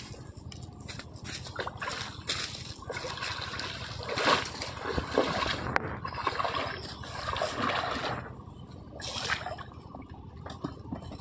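Shallow water sloshing and splashing in uneven bursts, quieter over the last few seconds.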